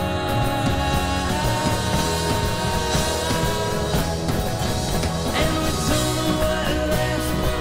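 Live folk-rock band playing: strummed acoustic guitar, upright bass and drums at a steady beat, with a man singing lead.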